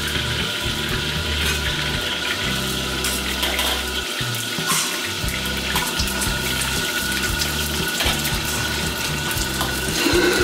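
Water tap running steadily into a pot at a Chinese wok station. Beaten egg sizzles in hot oil in the carbon-steel wok partway through, and a metal ladle scrapes and clicks against the wok.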